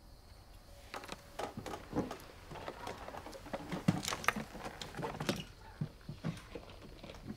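Hurried footsteps and clatter on a wooden floor: a quick, irregular run of knocks and taps that thins out to a few scattered ones near the end.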